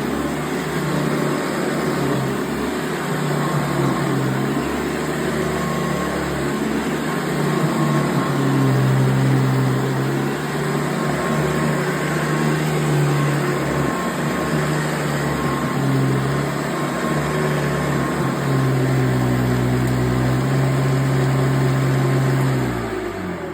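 Hoover Convertible upright vacuum cleaner running on carpet, a loud steady motor hum whose pitch shifts a little as it works. Near the end it is switched off and the hum falls in pitch as the motor winds down.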